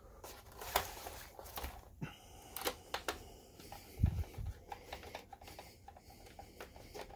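Light clicks and ticks of a hand screwdriver turning a screw into a projector's plastic bottom case, with the case being handled; a low thump about four seconds in.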